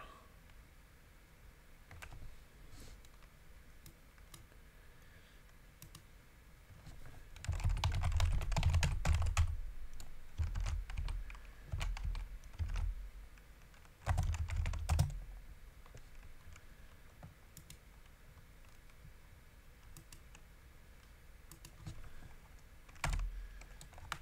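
Typing on a computer keyboard: a few bursts of rapid keystrokes, the longest about a third of the way in, another around halfway and a short one near the end, with scattered single key presses between.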